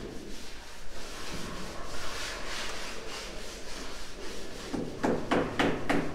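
Cloth rag rubbing over a glazed ceramic wall tile. From about five seconds in come quick knocks of a rubber mallet on the tile, about four a second, as the tile is tapped into its bed of adhesive.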